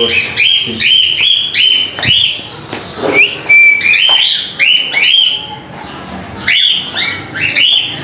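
Caged cockatiels and lovebirds making a lot of noise: a fast run of repeated rising whistled calls, two to three a second, with a short lull about six seconds in.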